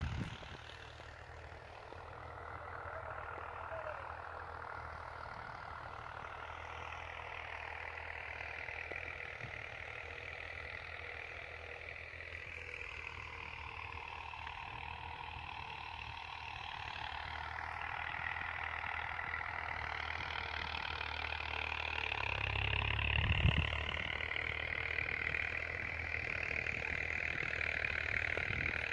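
An engine running steadily: a low hum with a higher drone above it that drifts slowly in pitch and grows louder toward the end. One short low thump about 23 seconds in.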